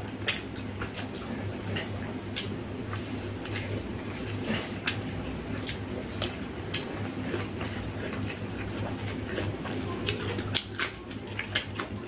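Eating sounds: irregular wet clicks and smacks of fingers mixing rice with omelette curry gravy and of mouths chewing, over a steady low hum.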